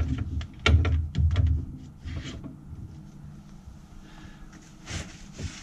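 Handling noises: three dull thumps with sharp clicks in the first second and a half, then quieter shuffling and a short rustle about five seconds in, as steel bracket pieces are shifted and fitted by hand.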